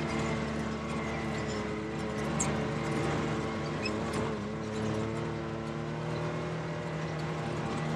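Can-Am Maverick X3 side-by-side engine running at a steady, even pitch, with scattered light clicks and rattles.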